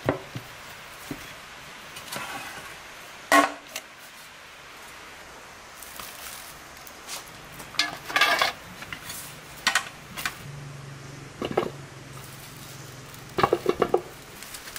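Aluminium bowls and a large metal basin clanking as they are handled and set down: several separate knocks, each with a short metallic ring, ending in a quick run of four or five clanks near the end.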